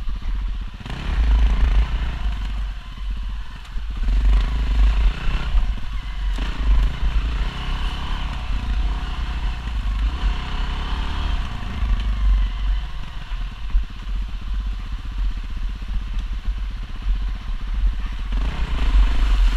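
Single-cylinder four-stroke enduro dirt bike (450-class) heard from on board, its engine running and revving up and down with the throttle as it rides over rough trail.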